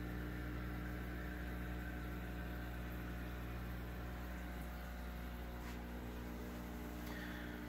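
Steady electrical hum from running equipment, many even low tones with a light hiss over them.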